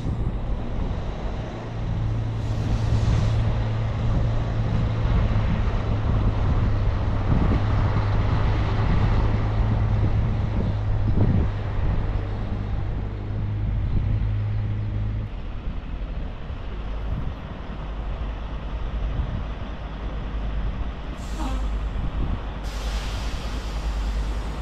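Heavy diesel truck noise: a steady low engine drone that stops about fifteen seconds in, with short bursts of hiss near the start and twice near the end.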